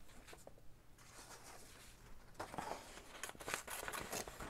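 Sheets of old book paper rustling and sliding as they are handled, after a quieter first half with a few faint taps.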